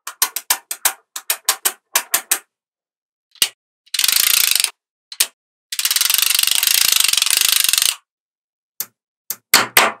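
Small magnetic balls clicking as they snap together: a quick series of sharp single clicks, then a half-second rattle, then a rapid run of clicks lasting about two seconds as a strip of balls snaps onto the block, and a few more clicks near the end.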